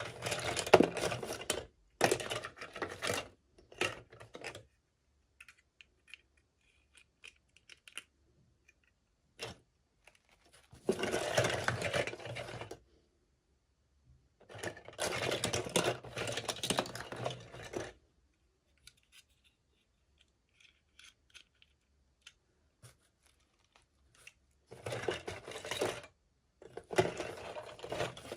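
Toy packaging being handled during an unboxing: noisy crinkling in about seven bursts of one to three seconds, with quiet gaps and a few faint clicks between them.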